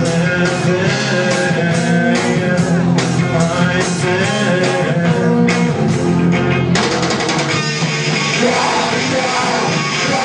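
Live rock band playing loudly: electric guitar, bass and drums. About seven seconds in, the regular drum beats stop and a steady cymbal wash takes over.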